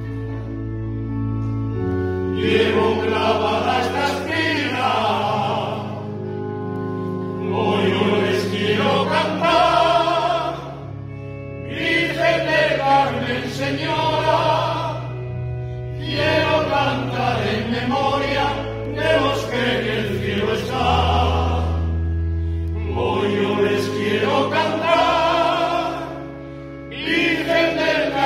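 Men's choir singing in several parts, phrase after phrase, over sustained low chords from an electronic keyboard.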